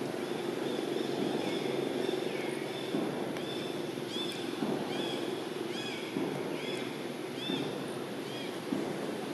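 A bird chirping repeatedly in short, arched notes, coming about once a second from about three seconds in. A steady low hum runs underneath.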